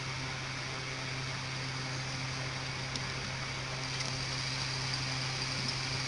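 Steady low hum and hiss, with a couple of faint ticks from a small screwdriver driving screws into a handheld radio's circuit board, about three and four seconds in.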